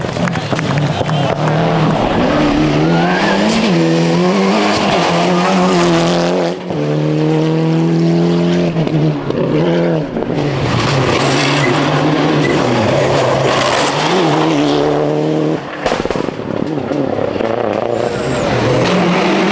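Rally cars at full speed on a tarmac special stage, engines revving hard, with the pitch climbing and falling back again and again through gear changes, and tyres squealing in the corners. Several cars pass one after another.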